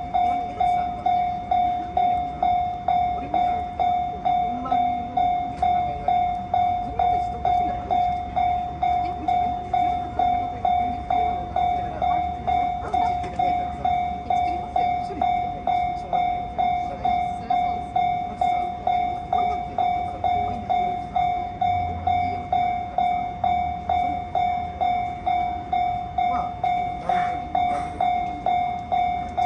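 Japanese railway level-crossing alarm ringing: an electronic bell tone struck about twice a second, each strike fading before the next, the crossing's warning that the gates are down.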